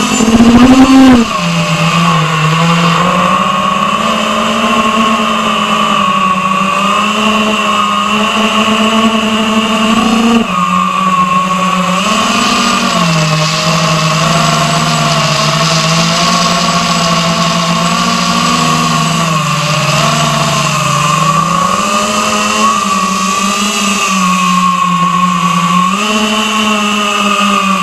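Eachine Wizard X220 racing quadcopter's brushless motors and propellers whining, picked up by its onboard camera, the pitch rising and falling with the throttle. A loud rising surge in the first second marks a hard throttle punch.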